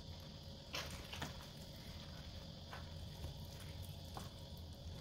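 Gloved hands shredding a tender smoked pork butt in its juices in a foil pan: faint wet tearing and squishing with a few short soft crackles, the sharpest about a second in. A faint steady high-pitched hum runs underneath.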